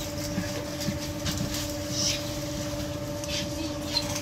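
Steady electrical hum of a metro train standing at a platform, two even tones held throughout over a low rumble, with scattered faint clicks and knocks.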